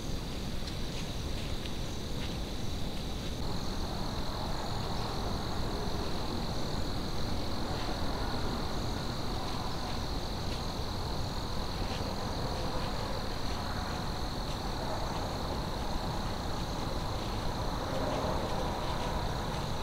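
Evening insect chorus of crickets trilling in a steady, high, unbroken band, over a low steady rumble, with a few faint clicks scattered through.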